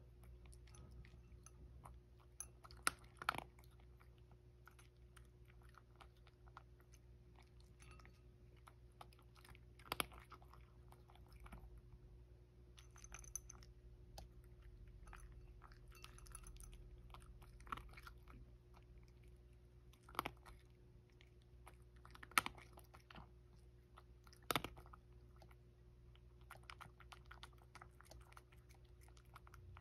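A domestic cat eating dry kibble from a ceramic bowl: faint, irregular crunching and chewing, with a few louder sharp clicks scattered through.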